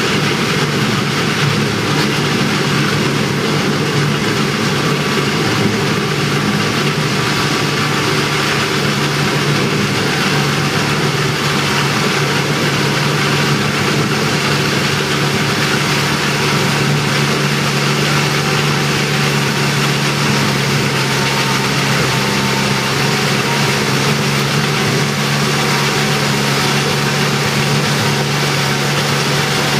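Feucht OB Future II fallen-fruit harvester's engine running steadily while the machine works along the orchard row picking up apples.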